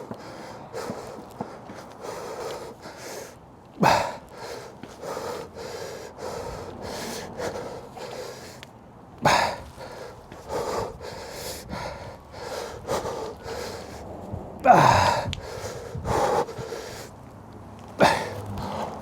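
A person breathing hard in quick, rhythmic puffs while exercising, with a louder strained exhale or grunt four times, one near three quarters of the way in sliding down in pitch.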